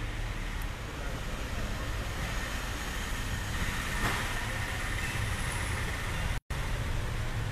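Steady low rumble with a hiss over it, typical of vehicle and traffic noise. It cuts out for an instant near the end.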